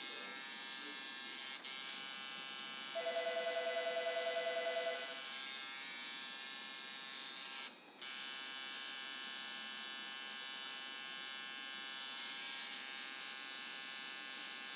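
Electric tattoo machine buzzing steadily, cutting out twice: a brief dip about a second and a half in, and a gap of a fraction of a second about eight seconds in. An extra tone joins the buzz for about two seconds.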